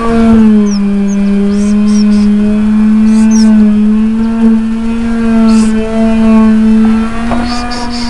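A loud, steady motor drone with a clear hum whose pitch wavers slightly up and down. A few faint, short, high chirps sound over it.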